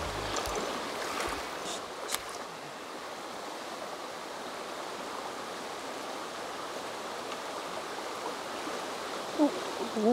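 Shallow stream flowing over a pebble bed: a steady rush of water, with a few light clicks in the first couple of seconds and a short voice near the end.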